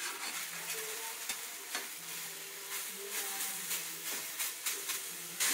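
Grated-potato pancake frying in a skillet with a steady sizzle, while a spatula scrapes and knocks against the pan again and again.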